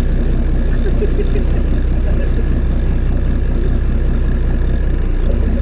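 A fishing boat's engine running steadily while trolling: a constant low drone with a steady hiss over it.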